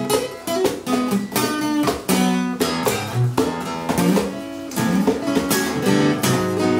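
Steel-string acoustic guitar played live, chords struck in a quick, uneven rhythm and left ringing between strokes.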